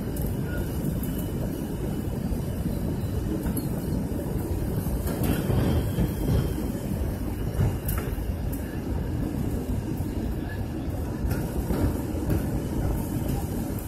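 Airliner cabin noise on final approach: a steady low rumble of jet engines and rushing air, swelling louder in the middle with a few knocks and rattles.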